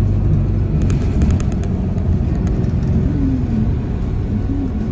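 Steady low engine and road rumble inside a moving city bus, with a few light rattling clicks about a second in.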